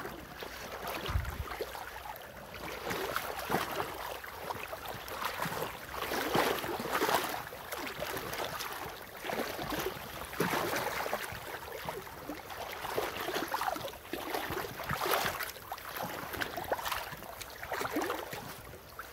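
Shallow river current running and sloshing, with irregular surges of splashing as a hooked king salmon thrashes at the surface close in.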